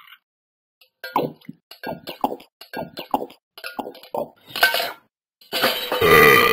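A run of short quick clicks, about three or four a second, then a louder, longer dog burp near the end.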